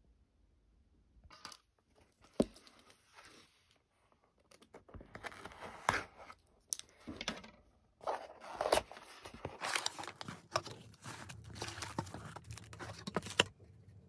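Plastic and paper packaging being handled: bursts of tearing, crinkling and rustling with a few sharp snaps, starting about a second in and stopping near the end.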